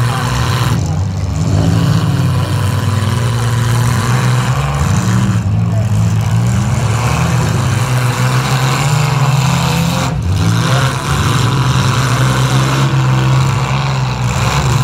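Engines of several demolition derby compact cars running and revving together, loud and continuous, their pitch rising and falling.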